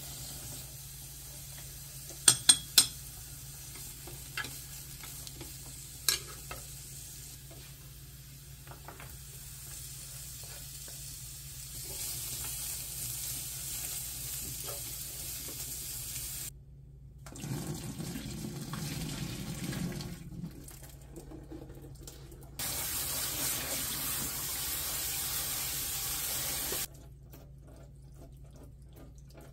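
Kitchen cooking sounds: a few sharp knocks early on, then vegetables sizzling as they are stirred in a frying pan, and near the end a kitchen tap running into a stainless steel sink for about four seconds before it stops.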